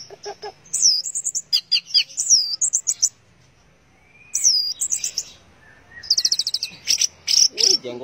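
Orange-headed thrush singing: sharp, high whistled notes and quick chattering runs, broken by a pause of about a second midway.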